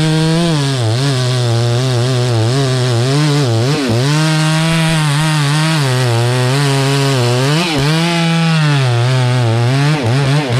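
Chainsaw running at full throttle while cutting through a rain tree log. The engine's pitch sags under the load and picks up again every second or two as the bar bites into the wood.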